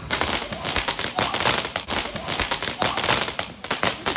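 Firecrackers going off in a rapid, irregular run of sharp cracks and pops, several a second.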